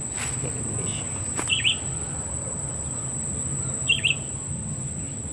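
Birds giving short chirps, a couple of times, over a steady high-pitched insect drone, with a low background rumble.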